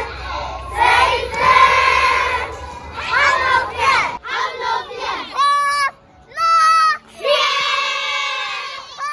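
A group of young children singing a song together. About four seconds in, the group gives way to a single child's voice in short held notes with brief pauses between them.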